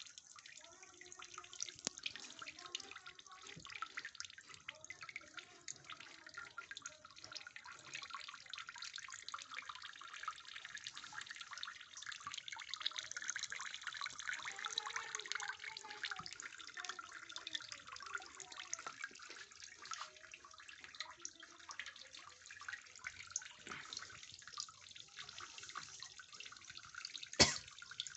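Water from an artificial waterfall trickling and splashing steadily, with many small drips. A single sharp click near the end.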